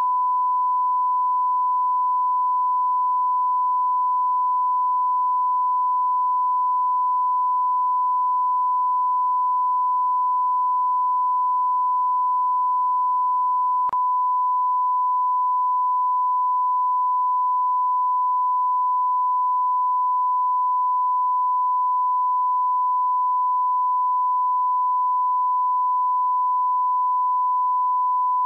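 A steady 1 kHz sine-wave test tone, one unbroken pitch, with a single faint click about halfway through.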